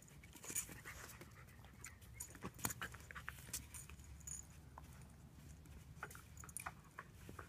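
A Brittany puppy and a big white long-haired dog play-wrestling on patio tiles: irregular soft scuffles and light clicks, the sharpest about two and a half seconds in.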